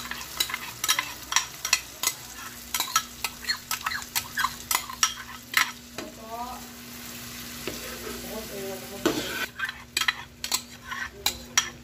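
A metal spoon clinking and scraping against a bowl and a nonstick wok, many irregular clicks, as a creamy salted egg sauce is poured in and spread over frying garlic, onion and green chilies. Steady sizzling underneath.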